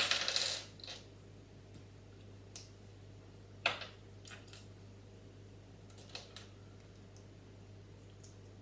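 Plastic Lego pieces rattle and clatter briefly at the start. Several separate sharp clicks follow as bricks are handled and pressed together.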